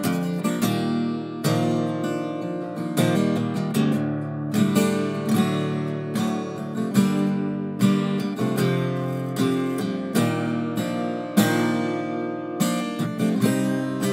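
Background music: an acoustic guitar strumming chords, each strike ringing on into the next.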